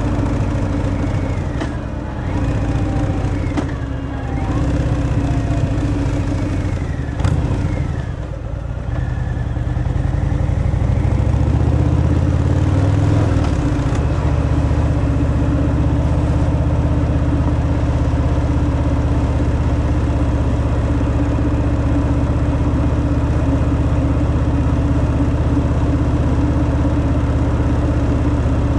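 Harley-Davidson Fat Boy's V-twin engine on its stock exhaust, under way. The note falls and dips through the first several seconds, picks up again about ten seconds in, and then holds a steady pitch.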